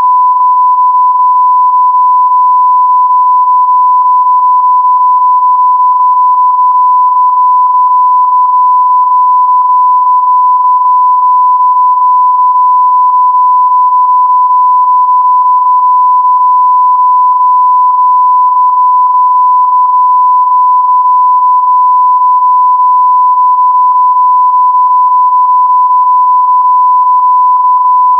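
Broadcast line-up tone at the head of a videotape, laid under the test bars: one loud, steady, unbroken beep used to set audio levels.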